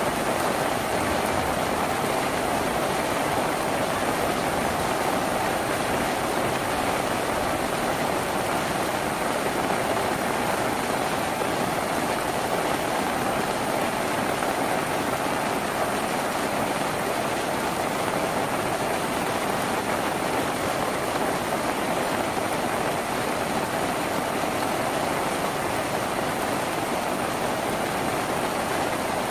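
Rain falling on a tin roof: a steady, even rush with no single drops standing out.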